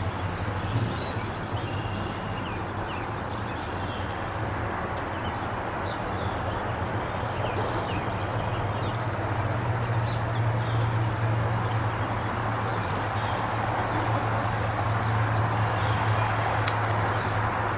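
Steady outdoor background noise with a constant low hum, and small birds chirping now and then through the first half. The noise swells slightly in the second half.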